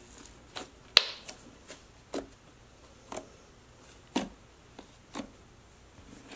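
Hands squishing and kneading a stiff, doughy slime, making a string of short sharp pops and squelches about once a second, the loudest about a second in.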